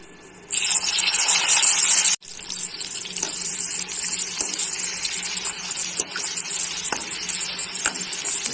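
Sliced red onions hitting hot oil in an iron kadai: a loud sizzle starts about half a second in, and after a brief break about two seconds in it runs on steadier and a little quieter as the onions are stirred. A few light clicks come from the slotted metal spoon against the pan.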